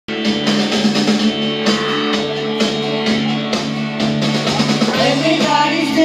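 Karaoke backing track with a steady drum beat playing through a loudspeaker; a woman starts singing into a microphone near the end.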